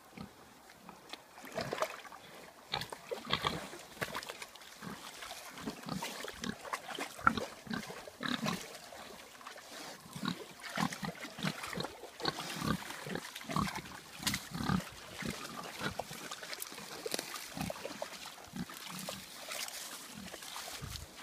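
Several pigs grunting in short, low, irregular grunts as they wallow and root in shallow swamp water, with small splashes and sloshing of the water among the grunts.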